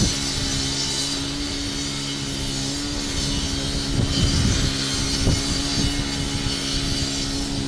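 Small engine of a trailer-mounted pressure-washing and soft-wash rig running at a steady, unchanging speed, a constant hum.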